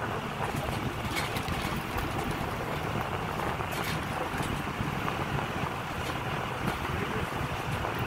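Steady road and engine noise from a moving vehicle, heard from inside it, with wind buffeting the microphone through an open window.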